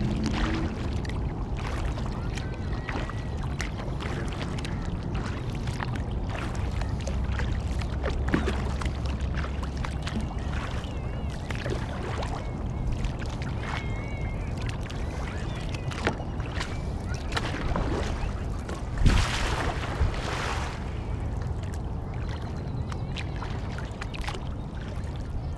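Kayak paddling on open water: paddle blades dipping and water splashing and lapping against the hull, with wind rumbling on the microphone. One louder splash about two-thirds of the way through, and faint bird calls now and then.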